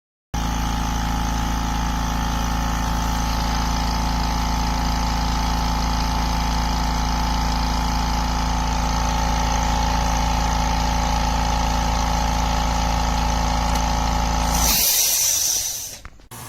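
Oil-free electric air compressor running steadily with a low motor hum, then stopping near the end with a short burst of hiss as it winds down.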